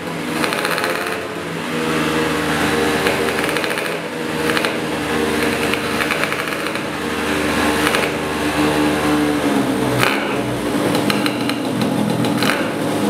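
Tuned Piaggio 180LC liquid-cooled two-stroke single-cylinder scooter engine with an expansion-chamber exhaust, running on a roller dyno at fairly steady low to mid revs, its pitch wandering slightly up and down. From about ten seconds in it runs less evenly, with a few sharp cracks.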